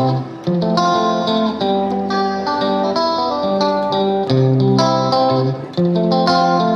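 Background music led by a plucked guitar, playing a melody of ringing notes.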